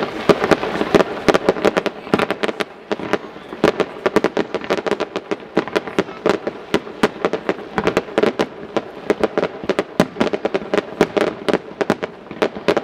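Fireworks display: a rapid, uneven string of sharp bangs and crackles, several a second, as shells and fountains go off in quick succession.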